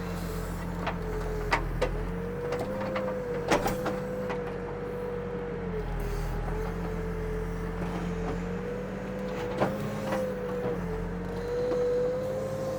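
Backhoe's diesel engine running steadily with a whine over it that wavers slightly in pitch, while the bucket digs wet dirt; a few sharp knocks come through, one near the start, one about a third of the way in and one near the end.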